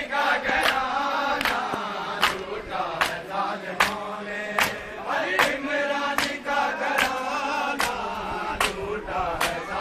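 A crowd of men chanting a mourning lament together, with hand slaps on bare chests (matam) about every 0.8 seconds keeping the beat.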